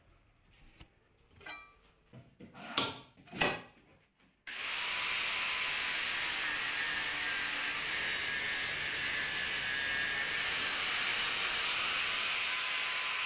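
Faint pencil scratches on steel and two sharp knocks, then about four and a half seconds in an angle grinder with a cut-off disc starts cutting through square steel tube: a steady, loud hiss with a thin high whine.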